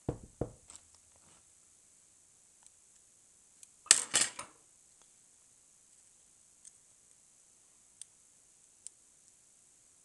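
Small metal lock parts and picking tools handled over a table: a few knocks at the start, a short metallic clatter about four seconds in, then a few light single ticks as a pick works in the Russwin lock cylinder.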